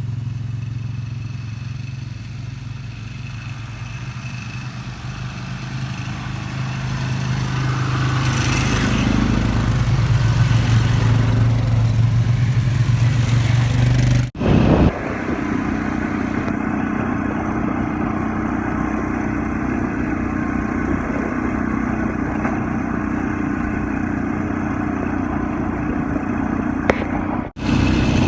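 A motor vehicle's engine running steadily, its note rising for a few seconds midway, broken twice by abrupt cuts after which the engine hum carries on with a slightly different tone.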